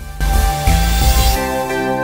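Background music: a loud swell with deep bass and a bright rush, settling into steady held chords.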